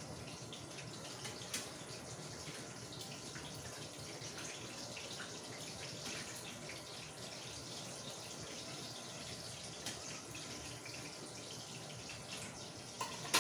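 Lumpia Shanghai spring rolls frying in hot oil in a pan: a steady sizzle with small crackles, and a few light clicks of a utensil against the pan.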